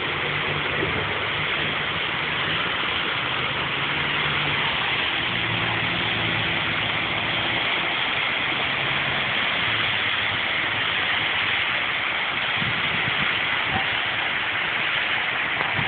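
Vehicle engine idling with a low steady hum that fades out about ten seconds in, under a constant hiss.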